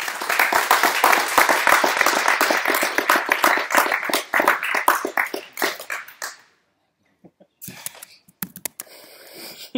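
A small audience clapping for about six seconds, then dying away, with a few faint knocks afterwards.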